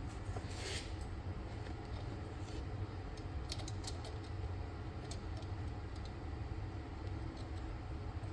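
A few light metallic clicks and taps as a small metal throttle-linkage bracket is handled and positioned in a steel bench vise, over a steady low hum.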